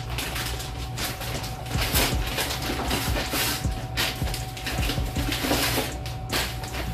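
Clear plastic packaging crinkling and rustling in repeated bursts as a packaged costume is handled and pulled out of its bag.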